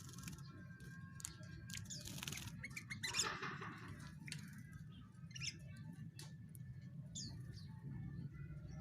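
Sooty-headed bulbul fluttering its wings in a bath, with scattered light clicks and two short rustling bursts, then a few brief high chirps near the end. A steady low hum runs underneath.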